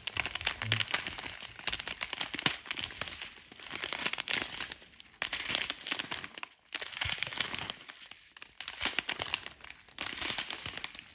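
Small clear plastic zip-lock bags of diamond painting drills crinkling as they are handled and turned in the hands, in a series of bursts with short pauses.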